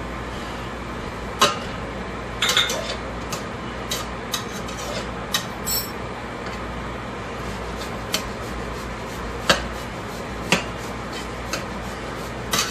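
Kitchen utensils and dishes clinking and knocking: about a dozen sharp, irregular knocks and clinks, over a steady low background hum.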